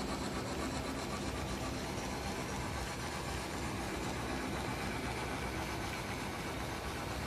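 HO scale model freight cars rolling along the track, a steady rumble of small wheels on the rails.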